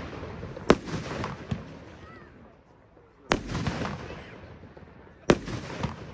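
Röder "Let's Fetz" firework battery firing aerial shots. Three loud reports come a couple of seconds apart, with a smaller pop after the first and another after the last, and each report trails off in a short noisy tail.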